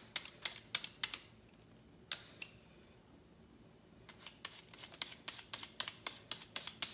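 Handheld Y-shaped vegetable peeler scraping the skin off a raw potato in quick strokes, several a second. There is a pause of about two seconds in the middle before the strokes start again.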